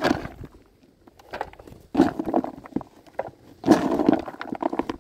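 Plastic spoon scooping and stirring sweetcorn and boilies in a plastic bucket, with rattles and scrapes in several separate bursts as bait is loaded for a carp bait boat.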